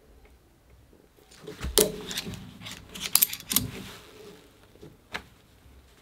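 Non-locking climbing carabiners clinking and their spring gates clicking as one is unclipped and clipped back in, flipped the other way. A run of sharp metallic clicks starts about a second and a half in, with one more click near the end.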